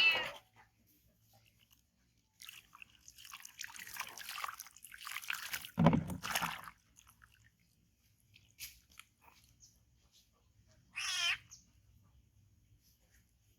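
Close-up chewing sounds in irregular bursts for a few seconds, with one sharp knock near the middle, then a single short high-pitched call from a small animal about two-thirds of the way in.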